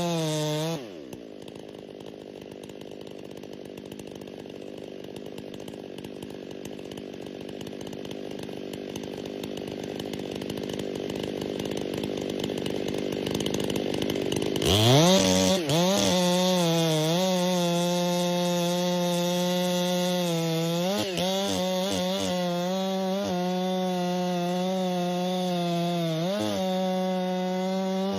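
Two-stroke chainsaw at high revs that winds down about a second in, followed by a steady hiss that slowly grows louder. At about fifteen seconds the saw revs back up and runs at full speed, dipping briefly a couple of times near the end.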